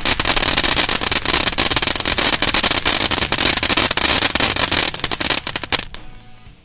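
Black Cat Energizer ground-fountain firework burning: a steady hiss of spraying sparks with dense, rapid crackling. It fades out quickly near the end as the fountain burns out.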